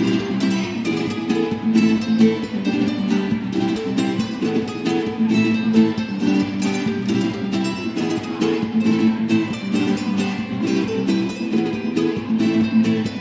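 Two acoustic guitars playing together: a quick stream of plucked notes over lower sustained notes.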